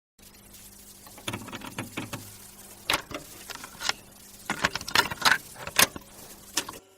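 Irregular sharp clicks and light rustling, like small objects being handled, over a faint steady hum; the clicks cluster most thickly past the middle and stop suddenly just before the end.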